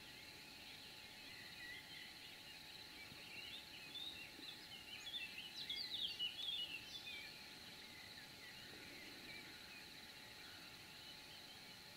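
Faint outdoor ambience with small birds chirping and twittering, busiest and loudest from about four to seven seconds in, over a steady thin high tone.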